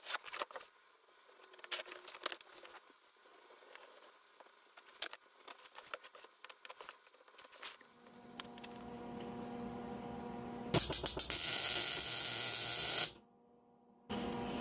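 A blade scoring and cutting a Coroplast plastic sheet on a bench: scattered clicks and short scrapes. Then a steady machine hum fades up, and about eleven seconds in a loud, even hiss of a welding arc lasts about two seconds and stops abruptly.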